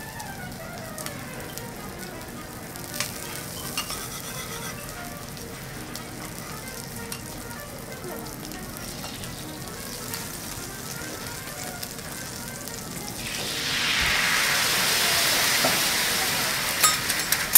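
Butter sizzling quietly on a hot steel teppanyaki griddle, with a few light ticks. About 13 seconds in, a much louder hissing sizzle swells up as liquid squeezed onto the griddle bubbles into a brown pool.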